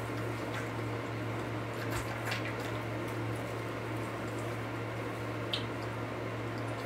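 Two-month-old maned wolf cub suckling milk from a feeding bottle: soft wet squishing and smacking, with a few sharper clicks, over a steady low hum.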